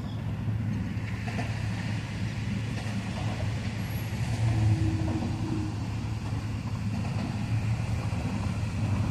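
Steady low rumble of road traffic crossing a nearby bridge, with a short low hum about halfway through.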